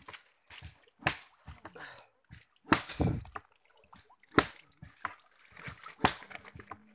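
Wet sago pith being beaten and kneaded by hand with water in a sago palm-stalk washing trough, to squeeze the starch out. There are four loud wet slaps about a second and a half apart, with smaller squelches and splashes between.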